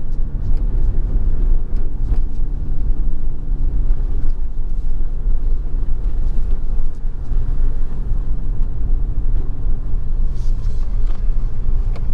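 Ford Focus ST driving, heard from inside the cabin: a steady low engine drone over road rumble, with a few light clicks.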